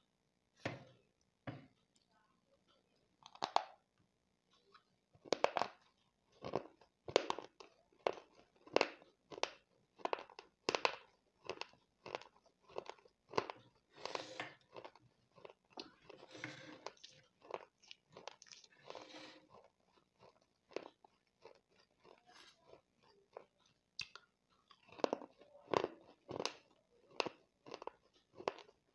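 Close-up mouth sounds of dry baked clay pot crumbles coated in clay and slate pencil powder being bitten and chewed. Sharp crunches come about one or two a second, thin out for a few seconds past the middle, then bunch up again near the end.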